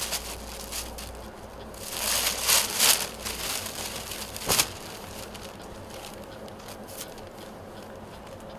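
Rustling and crinkling as a folded suit is handled and opened out. It is loudest about two to three seconds in, with a sharp click a little later.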